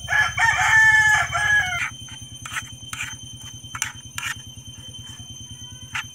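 A rooster crows once, a loud call about two seconds long. After it come a few scrapes and taps of a plastic spatula stirring in a nonstick pan.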